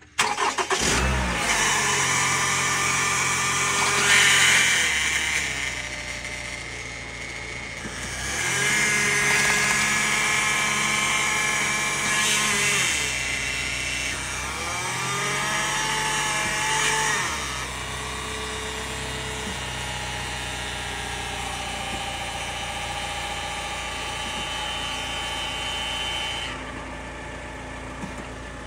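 2011 Toyota RAV4's 2.5-litre four-cylinder engine starts and runs at idle, its speed stepping up and down several times, to pump old transmission fluid out through a hose into a plastic tub as a stage of the fluid flush.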